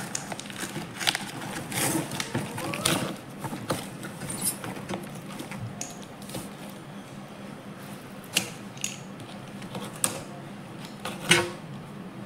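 A long corrugated cardboard box being cut and pried open with a knife: irregular scraping and crackling of the cardboard, with sharp knocks now and then, the loudest about eleven seconds in.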